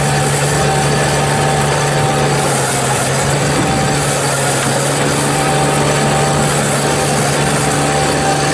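Engine of a Bobcat mini skid steer loader running steadily while it drives a 48-inch angle broom, its poly brush turning and sweeping snow with a continuous hiss over the engine hum.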